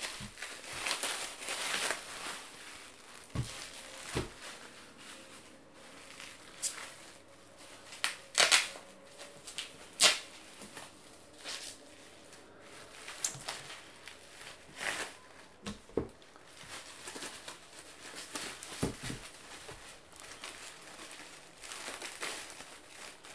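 Bubble wrap and plastic bag packaging crinkling and rustling as it is handled and peeled off hardback books, with sharp crackles every few seconds and a few soft knocks.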